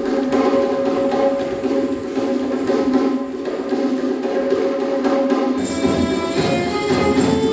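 Dance music played live by a stage ensemble: hand percussion over sustained held notes, with bass and a higher melody line, with strings, joining about five and a half seconds in.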